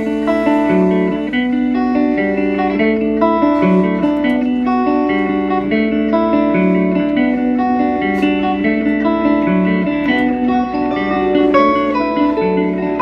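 Live music with no singing: an instrumental passage led by guitar, with plucked notes changing in a steady repeating pattern over a low bass line.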